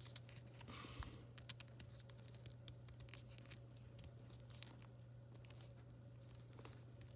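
Faint crinkling and crackling of thick, many-layered origami paper being folded and creased by hand: a scatter of small ticks, busiest about a second in.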